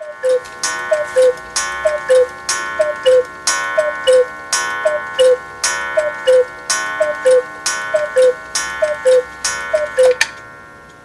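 Hones 8-day cuckoo clock calling the hour: about eleven two-note cuckoo calls, high then low, roughly one a second. Each note comes with a sharp metallic strike that keeps ringing between calls, and the ringing fades out near the end.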